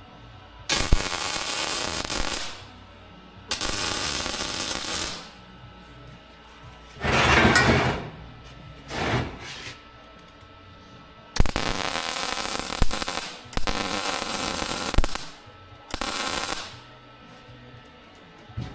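Arc welding in short runs: about seven bursts of steady crackling, each one to two seconds long, starting abruptly and stopping between tacks or short beads.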